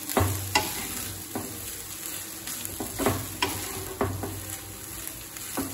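Spatula stirring and folding cooked rice with grated carrot in a stainless steel kadai: separate scrapes and soft knocks against the pan about once a second, over a steady low hiss.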